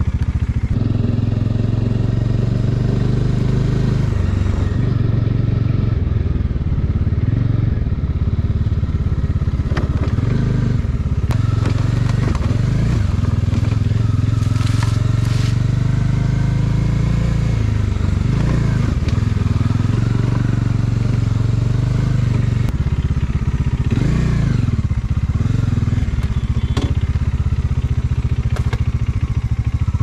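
Bajaj Dominar 400 motorcycle engine running under way off-road, its note rising and falling several times as the throttle changes.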